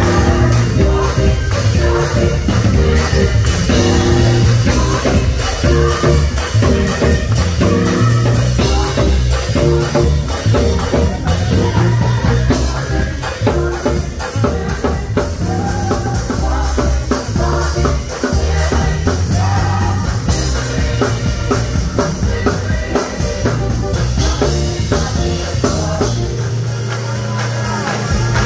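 Gospel choir singing with a live band: drum kit and a strong low bass line under the voices. The bass drops out about two seconds before the end.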